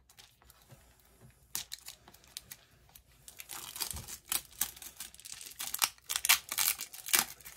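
Packaging being handled and torn open by hand: a few light clicks, then from about three seconds in a dense run of crinkling and tearing.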